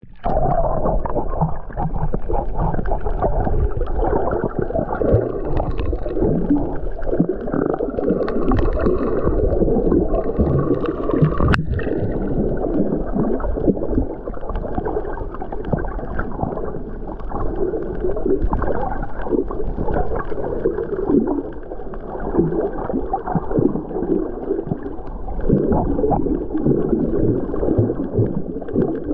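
Muffled rushing and gurgling of shallow surge water over a reef, heard through a camera held underwater. A single sharp click comes about twelve seconds in.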